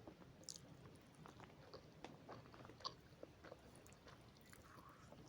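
Faint chewing and small mouth clicks of someone eating noodles, with one sharper click about three seconds in.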